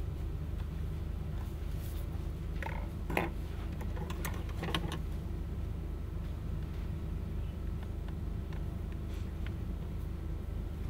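Steady low room hum, with a few light taps and rustles from someone moving at a desk about three seconds in and again between four and five seconds.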